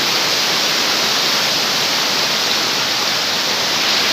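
Waterfall pouring steadily, a loud, even rush of falling water.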